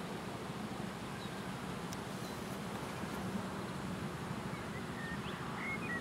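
Steady low running hum and rumble of a ride-on miniature railway train passing with its passengers, with a few small bird chirps near the end.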